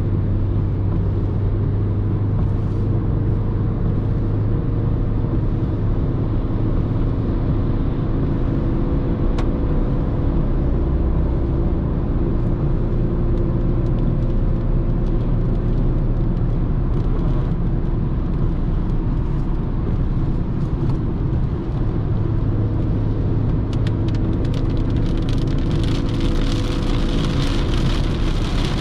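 2016 Renault Clio IV's 1.2 TCe turbocharged engine running steadily at highway cruise, mixed with tyre and road noise. A hiss grows louder in the last few seconds.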